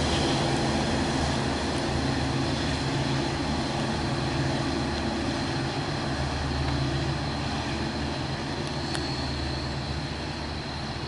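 Long Island Rail Road DE30AC diesel-hauled train pulling away: the locomotive's engine runs with a low, steady drone that slowly fades as the train moves off.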